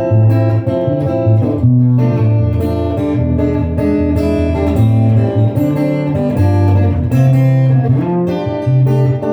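Instrumental music led by guitar, plucked notes and chords over a moving bass line.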